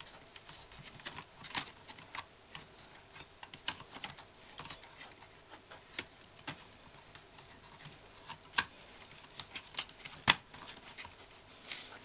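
Small scattered clicks and taps of plastic and metal as hands fit a connector onto a laptop's IDE hard drive and handle the drive in its bay, with two louder clicks in the second half.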